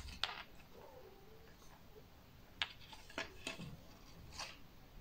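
Faint clicks and a paper rustle as a white perforated metal mirror tray and its paper price tag are turned over in the hands, a few short sounds spread through.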